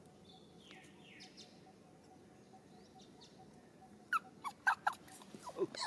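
Young macaque giving a quick series of sharp, high squeaks about four seconds in, followed by a few cries that slide down in pitch, as a hand feeds it.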